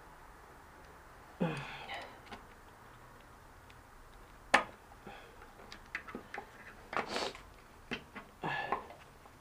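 Metal clicks and scrapes of a screwdriver prying at a spin bike's bearing circlip, with one sharp clack about four and a half seconds in and a run of smaller clicks after it. A short sigh of effort comes about a second and a half in.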